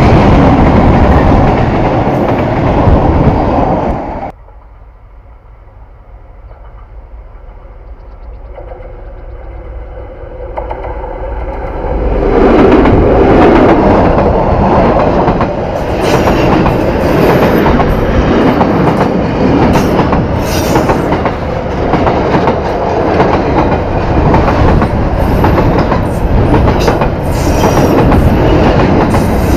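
Train passing close by: heavy rumble of cars on the rails, which cuts off suddenly about four seconds in. A train then approaches, growing steadily louder until it passes loudly from about twelve seconds in, with the clickety-clack of wheels over rail joints.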